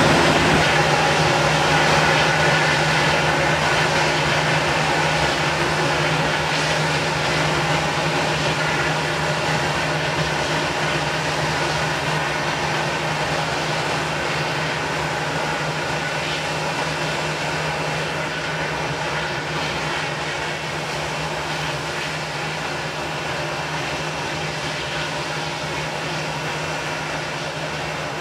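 Airbus A220-300 jet engines, two Pratt & Whitney PW1524G geared turbofans, at takeoff power: a steady loud jet noise with a low hum and a few held tones, slowly fading as the airliner lifts off and climbs away.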